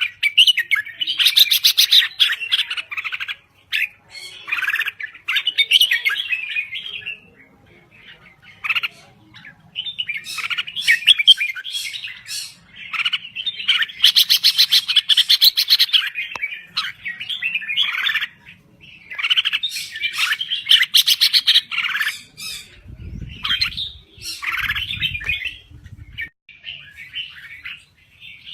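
Red-whiskered bulbul singing: bursts of quick, bubbly warbled phrases, each a couple of seconds long, repeated with short pauses. A low rumbling noise comes in briefly about three-quarters of the way through.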